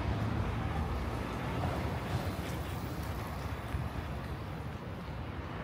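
Steady low rumble of vehicles in a city street, with a wash of noise above it, a little louder at first and easing slightly near the end.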